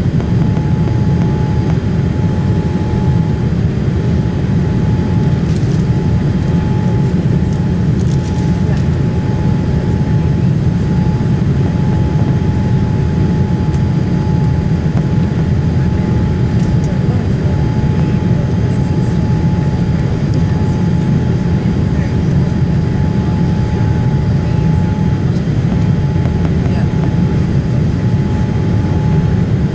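Boeing 787-8 Dreamliner cabin noise in flight: a steady low rush of airflow and engines with a thin, constant whine above it.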